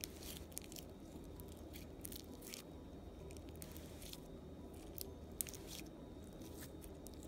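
Homemade glue slime being kneaded and squeezed together by hand: faint squishing with many small sticky clicks and pops.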